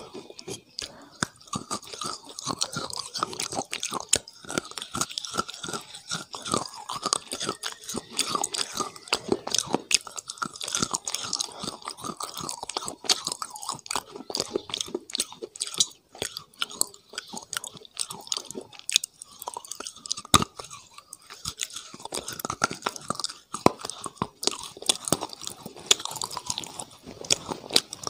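A person chewing and crunching crunchy food right at a clip-on microphone, with a steady run of many sharp, irregular crunches.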